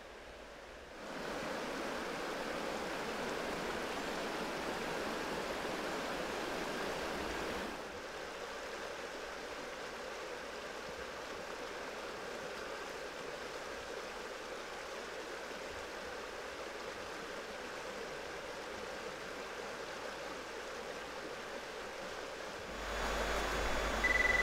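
Creek water rushing over rapids, a steady hiss that drops a little in level about a third of the way in. Near the end there is a short, high beep.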